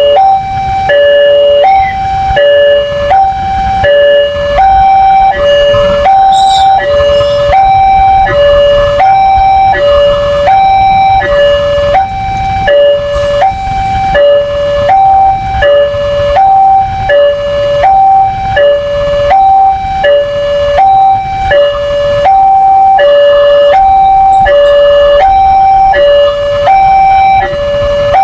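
Railway level-crossing warning alarm sounding: an electronic two-tone signal alternating steadily between a higher and a lower pitch about once a second, over a low rumble. It is the warning that a train is approaching and the gates are closing or closed.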